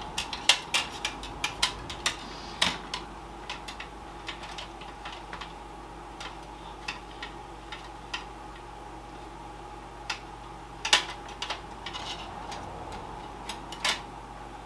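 Light, irregular clicks and clacks of plastic and metal parts as a solid-state drive is handled and fitted into a desktop PC's drive mounting. They come in a quick cluster at first, then more sparsely, with a sharper knock near the end of the first third and two more near the end, over a faint steady hum.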